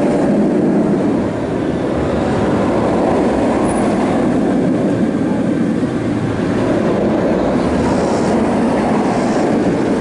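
Bolliger & Mabillard inverted roller coaster train running along its steel track, a loud, steady rumble with no break.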